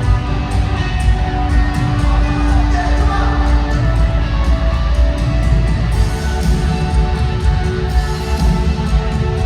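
Live rock band playing a song through a stadium sound system, with a steady drumbeat under it.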